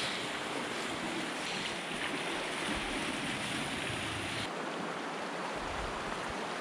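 Rushing water of the North Fork of the Virgin River flowing over rocks and small cascades in the Narrows slot canyon, a steady wash of water noise. The sound changes abruptly about four and a half seconds in, to the shallower rush of a wide, rocky riffle.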